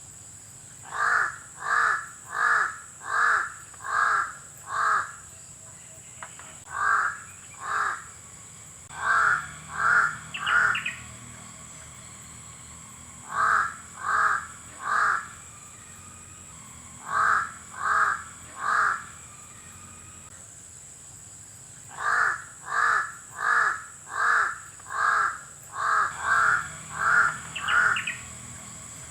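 Crow cawing repeatedly, in bouts of two to about nine caws at roughly one and a half a second, with pauses of a few seconds between bouts.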